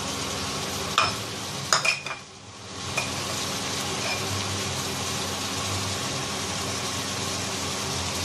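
Catfish pieces sizzling steadily in a wok in oil with a little added water. A few sharp clicks come about a second in, and the sizzle briefly drops just after two seconds.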